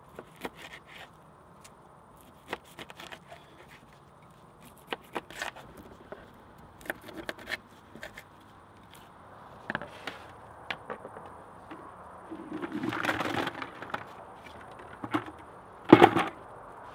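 Knife chopping small fish into chunks on a wooden board: irregular knocks and clicks of the blade cutting through and striking the wood. There is a longer rustling stretch near the end, then one loud sharp knock.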